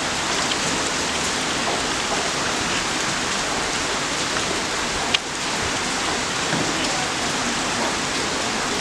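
Heavy rain pouring steadily, a dense even hiss of rain on surfaces, with one sharp click about five seconds in.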